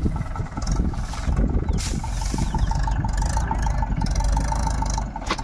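Mahindra tractor's diesel engine running steadily as it hauls a large load of straw, a low rumble with a light, regular ticking about four or five times a second.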